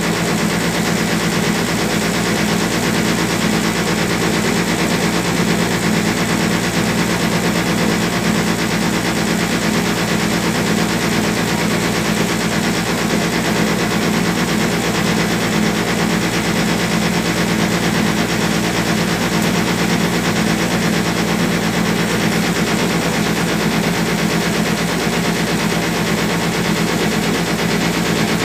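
Small passenger ferry's engine running steadily under way, heard on board as a loud, even drone with a fast, regular pulsing.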